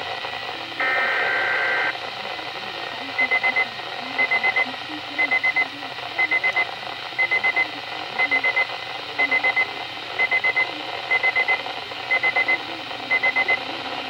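Midland WR-120 weather radio receiving an emergency alert over a hiss of radio static. First comes a one-second buzzy SAME/EAS digital header burst from the Weatheradio broadcast. Then the radio's own alarm starts: groups of four quick high beeps, about one group a second, signalling a received warning.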